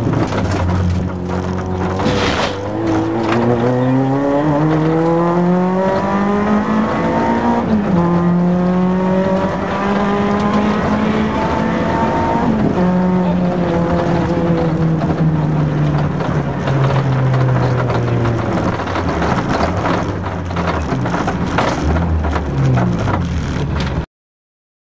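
Renault Clio Williams' 2.0-litre four-cylinder engine heard from inside the rally car. It pulls hard with rising revs through two upshifts, then eases off with revs slowly falling as the car slows. Knocks and rattles from the car come near the start and again near the end, and the sound cuts off suddenly just before the end.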